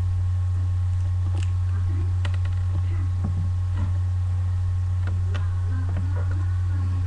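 Steady low electrical hum on the recording, with a few faint clicks and taps of small parts being handled in the fingers.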